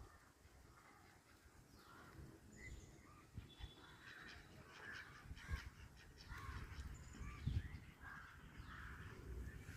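Ducks quacking faintly: many short, scattered calls, several overlapping at times.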